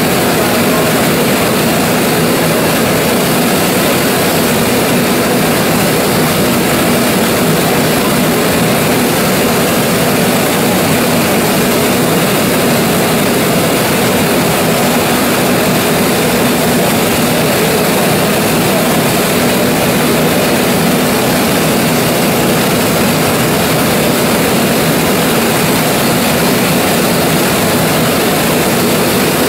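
A 1925 Gardner 4T5 oil engine running steadily at a constant speed.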